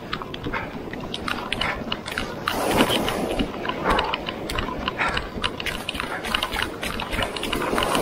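Footsteps on wet beach sand, an irregular run of short scuffs, over the steady wash of breaking surf.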